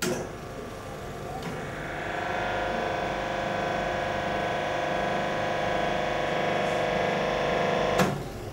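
Hydraulic hose crimping machine's motor-driven pump running with a steady whine, starting after a click about a second and a half in and cutting off sharply with a click near the end.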